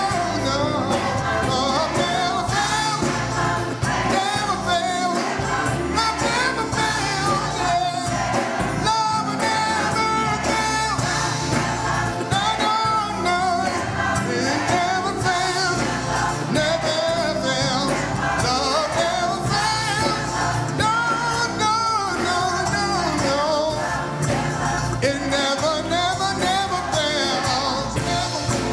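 Gospel music: a choir singing with instrumental accompaniment.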